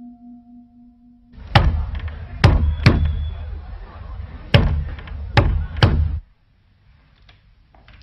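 A hand knocking on a heavy wooden door: six loud knocks in two groups of three, starting about a second and a half in and stopping a little after six seconds. Before the knocks, a held musical tone fades out.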